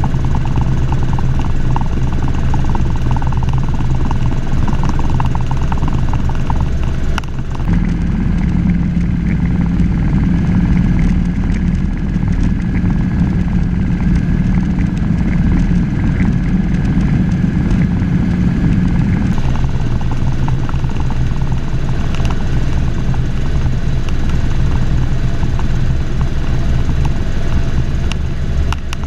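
Helicopter in flight, its rotor and engine making a loud, steady drone heard from inside the cabin. The low hum grows stronger from about 8 to 19 seconds in, then settles back.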